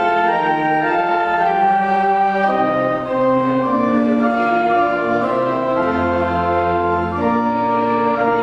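Church organ playing a slow hymn tune in held chords that change every second or so, with a deep pedal bass note entering about six seconds in for roughly a second.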